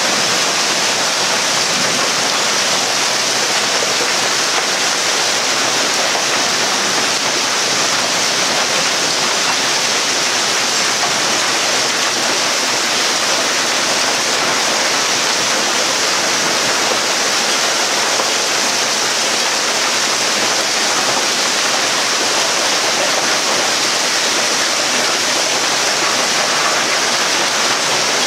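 Heavy downpour of rain and hail falling on a yard, a loud, steady, unbroken hiss.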